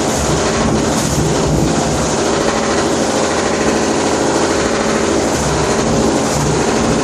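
Washing machine running with a loud, continuous mechanical noise: a low pulsing rumble under a steady hiss.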